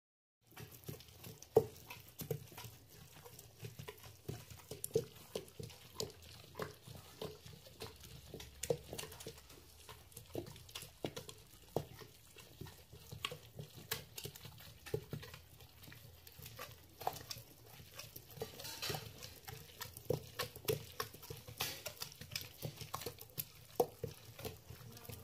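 A ragado, a traditional stone masala grinder, grinding wet spice paste: the round grinding stone turns in the stone basin with irregular soft knocks and scraping, about one or two a second, as a hand pushes the paste back under it.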